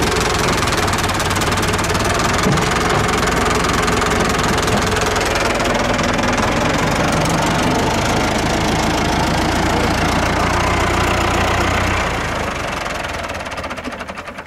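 Renault 652 tractor's diesel engine running close by, steady and loud, fading away over the last couple of seconds.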